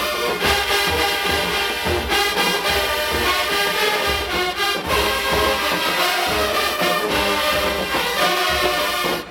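Marching band playing loud and steady, brass section carrying the tune over a driving drum beat.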